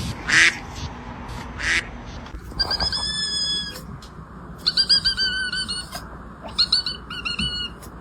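High-pitched animal calls: two short breathy bursts, then one long, flat, high call, then two runs of quick, repeated high calls.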